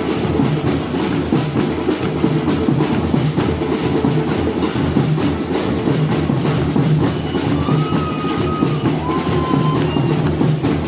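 Batucada percussion ensemble playing a dense, continuous samba rhythm, with the deep drums strongest and many quick drum strokes layered over them.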